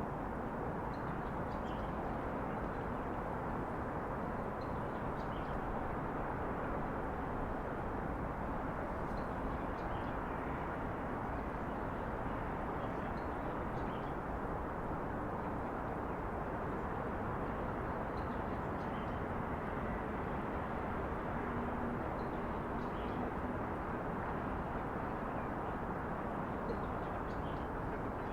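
Steady distant city traffic hum, with faint short bird chirps every few seconds over it.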